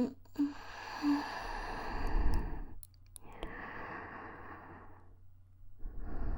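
A woman's slow, sighing breaths close against a binaural dummy-head microphone: a long breath, a short pause, a second breath, and a third starting near the end, with a few brief soft tones early on.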